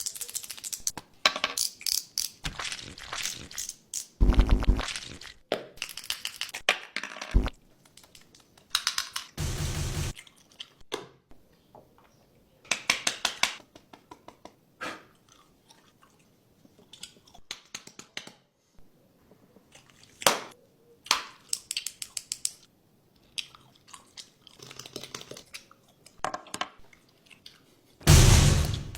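An irregular run of short clicks, taps and brief scraping or crunching bursts, with quiet gaps between them.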